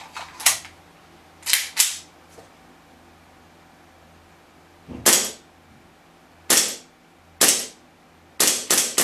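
WE Browning Hi-Power gas blowback airsoft pistol firing about nine single shots at an uneven pace, each a sharp crack of gas and the slide cycling, a pair in quick succession early on and a faster run of shots near the end.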